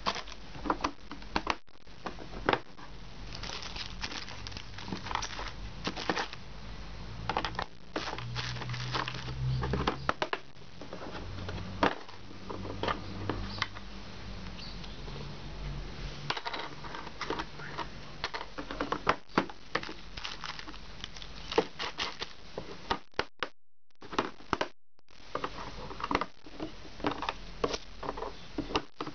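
Irregular clicks, taps and crinkling of small objects being handled, with a short low hum about eight to eleven seconds in.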